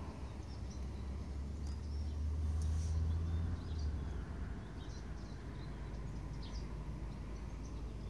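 Several songbirds singing and chirping in short high calls and trills. Underneath is a low rumble that eases off about three and a half seconds in.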